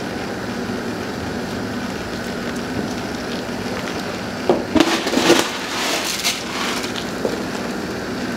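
Wooden spoon stirring noodle soup in a large pot over a steady hiss, with a run of scrapes and knocks against the pot about halfway through.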